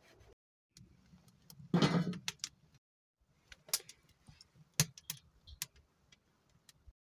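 A large cleaver-style knife cutting through an aubergine and knocking on a wooden cutting board, with one heavier knock about two seconds in. After that come sparse, sharp clicks and light taps.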